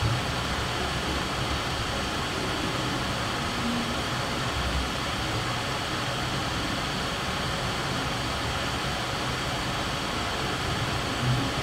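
Steady room noise: an even hiss with no pauses, with a soft low bump near the start and another near the end.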